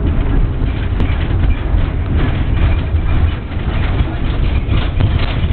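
Tram running along its track, heard from inside the car: a steady, loud low rumble with irregular clatter over it.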